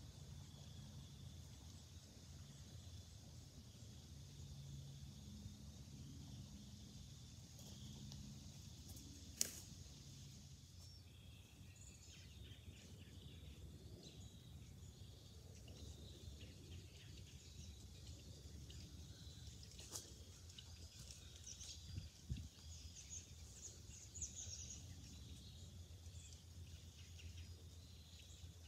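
Faint outdoor ambience: a steady low rumble with a faint high hiss, two sharp clicks about a third and two-thirds of the way through, and a few brief bird chirps near the end.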